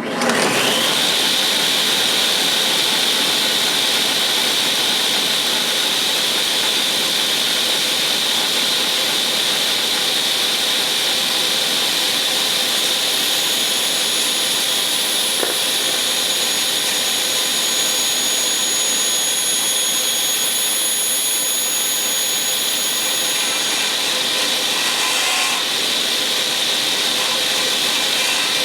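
Craftsman table saw switched on, coming up to speed within about a second and then running steadily with a constant whine.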